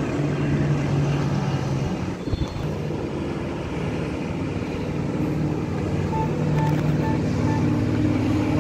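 Strong wind rushing over the microphone, over a steady engine drone. Four short high beeps about six seconds in.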